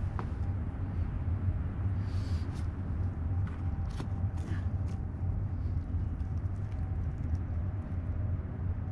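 Steady low outdoor rumble, with scattered faint scuffs and taps of a climber's shoes and hands on rock.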